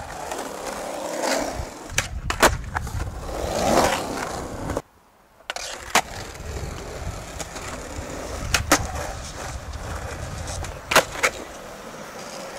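Skateboard wheels rolling on a concrete skatepark surface, with several sharp clacks of the board hitting the ground, some in quick pairs, as tricks are popped and landed. The sound breaks off briefly a little before the middle.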